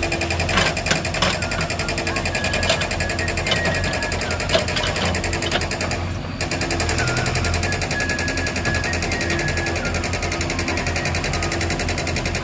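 A JCB 3DX backhoe loader's diesel engine runs close by with a fast, even clatter. A few sharp knocks come in the first half, and the sound dips briefly about six seconds in.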